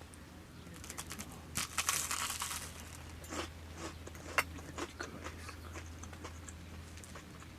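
Biting into crisp toasted bread and chewing it: a burst of crackly crunching about two seconds in, then scattered crunches with one sharp crack a little after four seconds.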